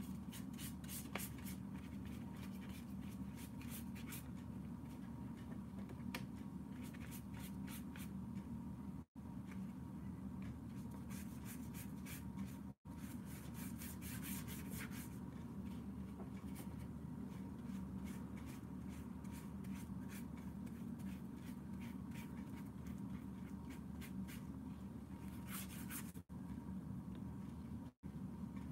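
Paintbrush strokes brushing and scratching across sketchbook paper in short clusters, over a steady low hum.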